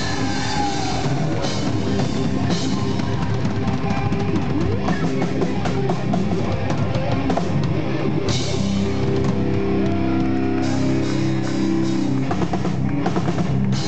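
Gothic rock band playing an instrumental passage live: drum kit with frequent cymbal and drum hits under electric guitar and bass, with held guitar notes in the middle.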